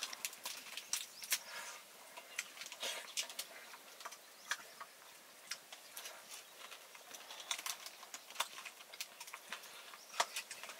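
Metal spoon clicking and scraping on a steel plate, with chewing, in a run of soft, irregular little clicks as a meal is eaten.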